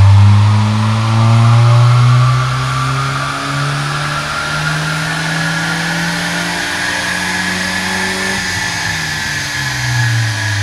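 Toyota Corolla E90's four-cylinder engine pulling under load on a rolling-road dyno, its exhaust note climbing slowly in pitch as the revs build. About ten seconds in, the revs fall away.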